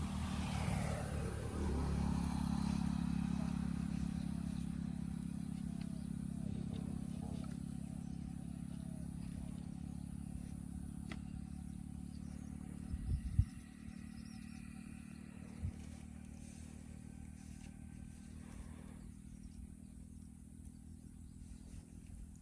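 A motor engine running with a low, steady drone that slowly fades away. About thirteen seconds in there are a few sharp knocks.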